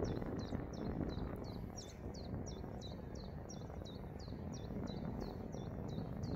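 Low outdoor rumble with a short, high chirp repeated very evenly about three times a second, each chirp a quick downward glide.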